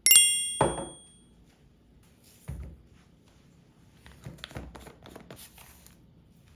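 Hard objects being handled and set down: a sharp clink with a bright ringing tone right at the start, a dull thunk just after it, then quieter scattered knocks.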